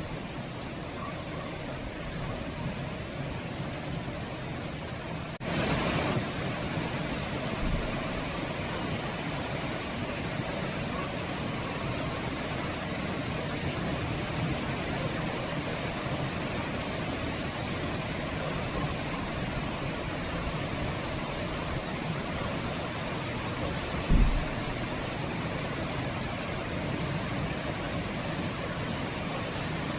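Steady rainfall, a dense even hiss, that suddenly gets louder about five seconds in and stays that way. One short low thump comes about two-thirds of the way through.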